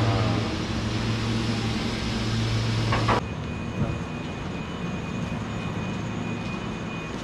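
Steady low machine hum with a wide hiss from workshop machinery, which cuts off abruptly about three seconds in, leaving a quieter workshop background with a faint thin high whine.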